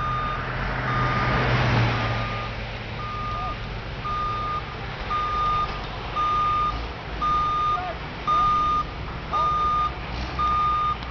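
Electronic warning beeper sounding a single steady tone on and off at an even pace, about one beep every three-quarters of a second, like a vehicle's reversing alarm. Underneath is the low hum and road noise of driving, with a swell of rushing noise in the first two seconds.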